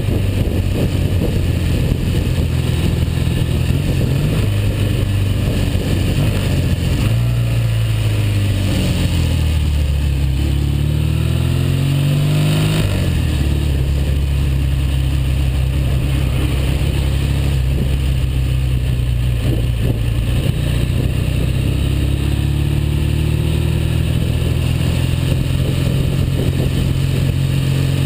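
1959 Norton Dominator 600's parallel-twin engine running on the road, freshly overhauled. The engine note falls, climbs again and drops abruptly about halfway through, then holds steady with a slight rise near the end.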